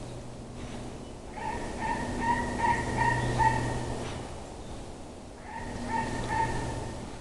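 An unidentified animal calling: a run of short, repeated pitched notes lasting about two and a half seconds, then a shorter run near the end, over a steady low hum.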